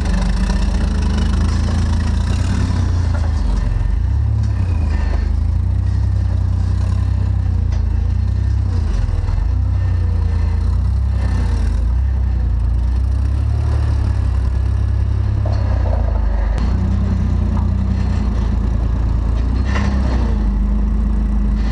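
3rd-generation Toyota 4Runner's engine running steadily while the truck crawls over desert rocks, with a loud, even low drone.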